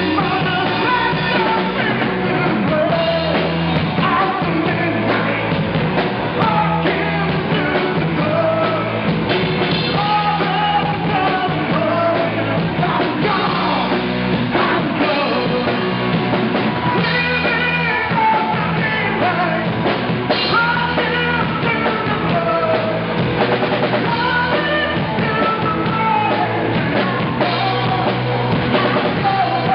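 Live rock band playing electric guitars and a drum kit, with a man singing into a microphone.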